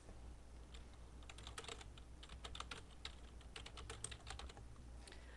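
Typing on a computer keyboard: a run of faint, irregular key clicks, starting about half a second in.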